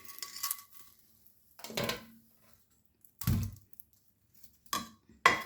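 Several short, separate knocks and clunks about a second apart, the heaviest a dull thump about three seconds in: charred guavas and a plate being handled and set down on a kitchen counter.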